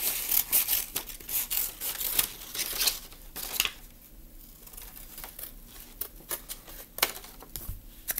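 Scissors snipping through folded colored paper: a quick run of short cuts for the first few seconds, then a quieter stretch with only a few spaced snips.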